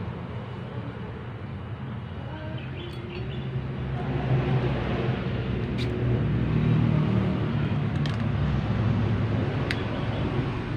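A motor vehicle engine running with a low, steady rumble, growing louder about four seconds in and staying up, with a few faint clicks.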